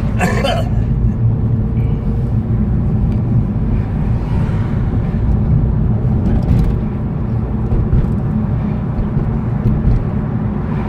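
Steady road and engine rumble of a moving car, heard from inside the cabin.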